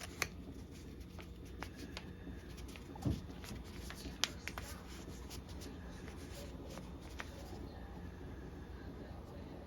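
Faint handling noises: scattered small clicks and taps, with a soft knock about three seconds in, over a low steady hum.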